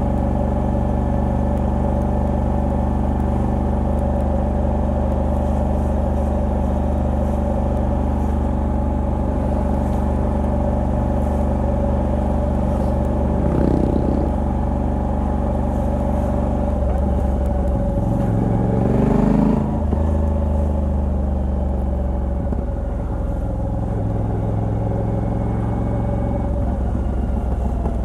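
Moto Guzzi V85TT's air-cooled transverse V-twin, on its stock exhaust with a Mistral decat pipe, running steadily under way. The engine note rises to a brief peak about 19 seconds in, then settles back.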